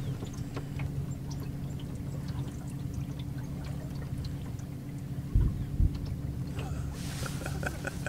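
Two deep, distant booms about half a second apart, from military demolition explosions, a little past halfway through, over a steady low hum.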